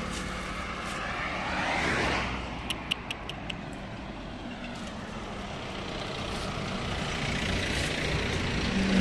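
Road traffic passing: one vehicle's tyre and engine noise swells and fades in the first few seconds, and another builds up toward the end. A few light clicks come about three seconds in.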